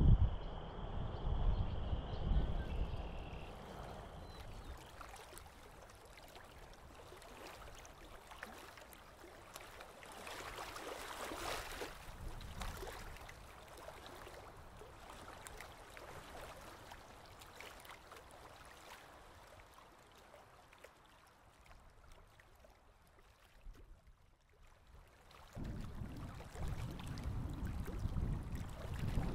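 Outdoor field ambience with wind buffeting the microphone at the start and again near the end. In between, a faint steady hiss of shallow creek water running over pebbles.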